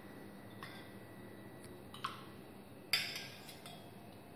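A steel spoon clinking against a stainless steel bowl while scooping thick curd: a few light, short clinks with a brief ring, the loudest about three seconds in.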